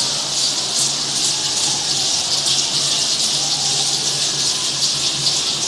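Many parachico dancers' chinchín rattles shaken together, a dense, loud hissing rattle that pulses in a loose rhythm.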